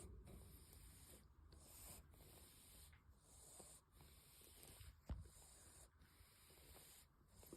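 Faint, snuffly breathing of a small cat with a badly blocked nose, in a rough rhythm of about one breath a second: the sound of heavy nasal congestion. A single soft click about five seconds in.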